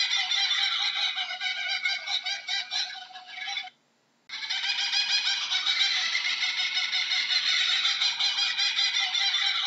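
Laughing kookaburra calling: a dense, unbroken run of rapid repeated notes. The calling fades, cuts out for about half a second a little under four seconds in, then starts again abruptly.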